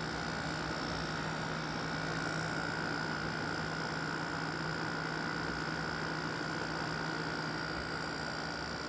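Steady mechanical hum with a constant higher whine, unchanging throughout.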